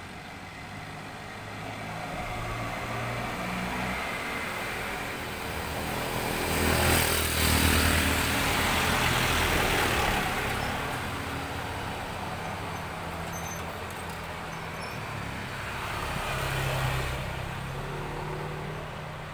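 A motor vehicle passing by, its engine and road noise growing louder to a peak about seven to ten seconds in and fading away, with a smaller second swell near the end.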